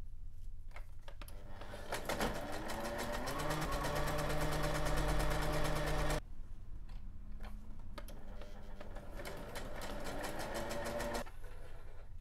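Brother XL-2120 electric sewing machine stitching through paper in two runs, each with the motor whine rising in pitch as it speeds up over rapid needle strokes. The first run stops abruptly about six seconds in, and the second ends about a second before the end.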